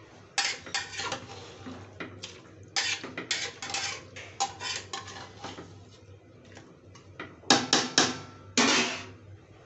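Metal spatula scraping and clanking against the inside of an aluminium pressure cooker while stirring pieces of mutton, in irregular bursts of quick strokes with short pauses and one longer scrape near the end.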